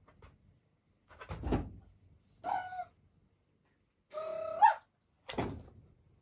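A squeaky toy squeezed twice, each a steady squeak ending in a brief upward squeal, the second longer. Two short, dull thumps fall between and after the squeaks.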